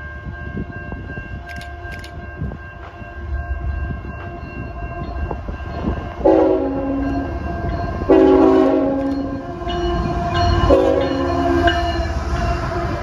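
Horn of an approaching CN freight locomotive, sounding two long blasts and then a short one over the diesel's low rumble. The locomotive and its double-stack intermodal cars rush past close by near the end.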